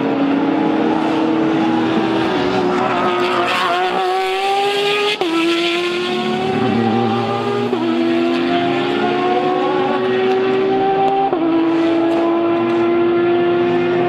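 Race car engines accelerating hard through the gears. The engine note climbs steadily and drops sharply at each upshift, about five, eight and eleven seconds in. A Ford GT GTE car with a twin-turbo EcoBoost V6 passes close near the middle.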